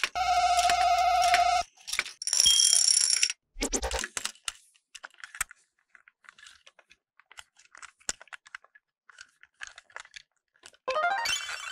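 Short electronic toy tones at the start, then light plastic clicks as a small battery-powered toy train engine is handled, and near the end its motor and gears whirring up to speed.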